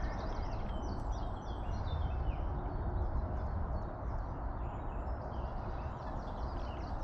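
Songbirds singing, a busy run of short high chirps and trills, over a steady low rumble of wind on the microphone.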